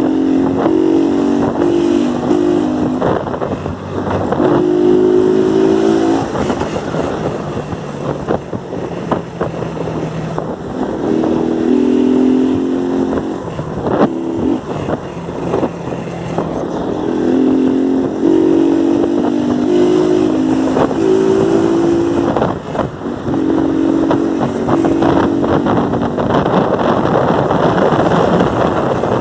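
Motorcycle engine running under the rider, revved in repeated short bursts of throttle blips every few seconds, with wind rushing over the microphone.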